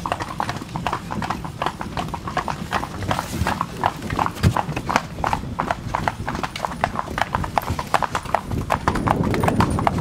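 Hooves of a pair of horses pulling a wagon along an asphalt road: a quick, even clip-clop, several strikes a second.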